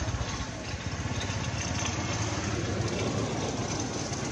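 An engine idling steadily: a low, even, pulsing hum.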